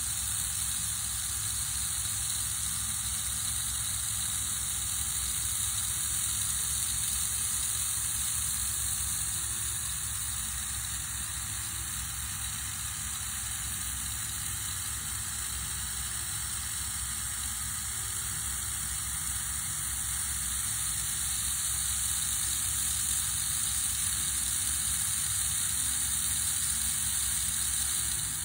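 The small open-frame electric motor and gear drive of a Jouef CC 7107 HO model locomotive running with the body removed, a steady, even whirring hiss.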